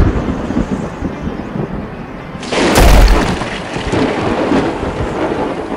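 Thunder: a low rumble, then a sudden loud thunderclap about two and a half seconds in, with a deep rumble that slowly fades.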